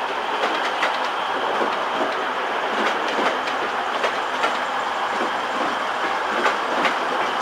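Class 185 diesel multiple unit running into the platform: steady rolling noise with irregular clicks and clatter from the wheels passing over rail joints and pointwork.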